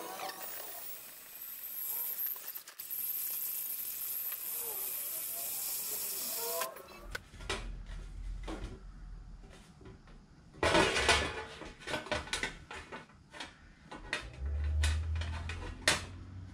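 A cordless drill runs with a steady hiss for about seven seconds, boring fixing holes for an aluminium checker-plate heat shield. Then comes a series of knocks and metallic clatters, loudest about eleven seconds in, as the checker plate is handled and bent into shape against the bike.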